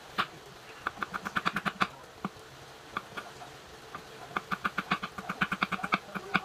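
Kitchen knife chopping ginger on a wooden cutting board: quick runs of sharp taps, about six a second, one run about a second in and another from about four and a half seconds to near the end.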